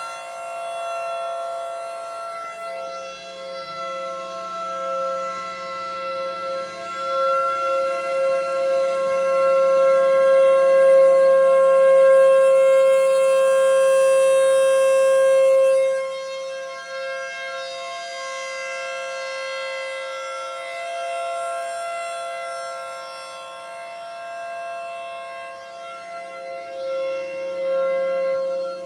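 Federal Signal Thunderbolt 1000B and Federal Signal 2001-130 tornado warning sirens sounding together in a steady wail, a chord of several held tones. It swells to its loudest about a third of the way in, drops back sharply about halfway through and rises again near the end, as the rotating horns sweep toward and away.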